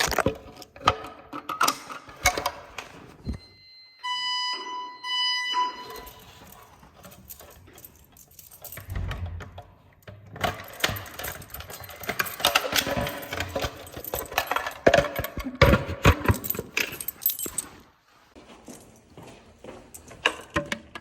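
Irregular clicking, clattering and jangling, like keys and metal hardware being handled. About four to six seconds in there are two short electronic beeps, each about a second long.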